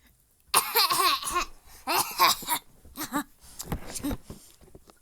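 A young girl coughing hard in four fits, some with a voiced, rasping edge.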